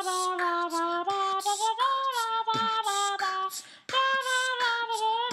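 A woman singing alone, unaccompanied, a high melody sung phrase by phrase with a short break about three and a half seconds in.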